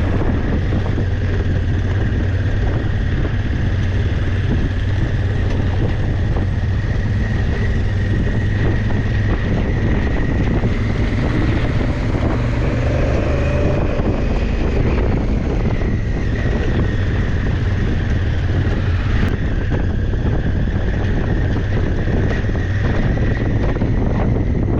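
Enduro motorcycle under way: a steady low engine drone with wind buffeting the camera microphone and a thin high whine over it.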